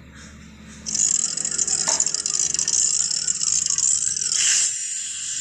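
A dry rattling, hissing sound effect over faint music, part of a TV channel ident's soundtrack; it starts about a second in.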